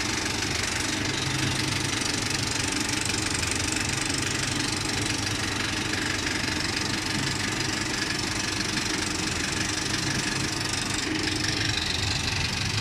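Cinemeccanica Victoria V5 35mm film projector running steadily while projecting a film, an even mechanical running noise with a low steady hum.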